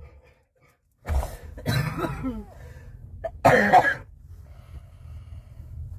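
A person coughing and clearing their throat in three short bouts, the last one the loudest.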